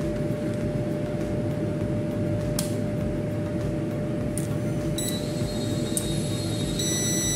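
A UPS (uninterruptible power supply) powering up on the bench over a steady background hum. There is a click about two and a half seconds in, and about five seconds in a thin high-pitched whine sets in and grows stronger near the end.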